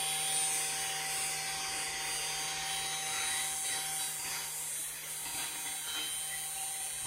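Mini CNC machine running a test toolpath with no bit fitted: a steady electric hum and whine of its motors driving the axes.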